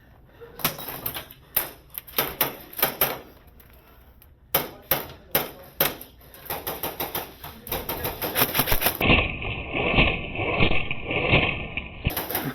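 Airsoft guns firing: scattered single shots, then rapid bursts from about six seconds in. The fire sounds muffled for about three seconds near the end.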